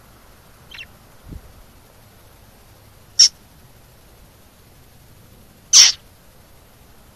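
Budgerigar giving two short, sharp high chirps about two and a half seconds apart, the second slightly longer, with a fainter chirp about a second in.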